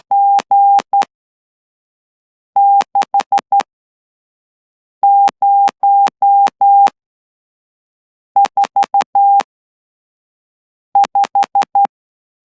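Morse code sent by hand on a straight key at about 12 words per minute. A steady tone of about 800 Hz from a 9M2VJP CW Player iBox is keyed into long and short elements, with a sharp click at the start and end of each element. It comes in five separate characters, each followed by a pause of about a second and a half.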